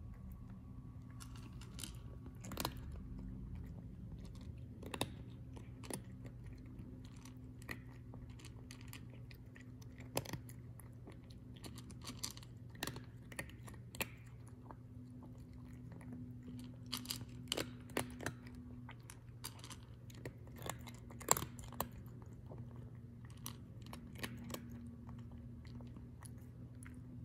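A cat eating dry kibble from a bowl: irregular crisp crunches as it bites and chews the pellets, over a steady low hum.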